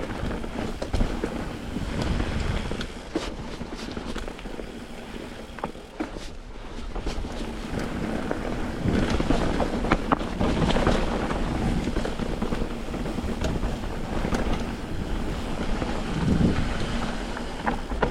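Wind buffeting the camera microphone, with the rolling rumble, knocks and rattles of a mountain bike descending a rocky dirt trail. It grows louder, with more sharp knocks, about halfway through and again near the end.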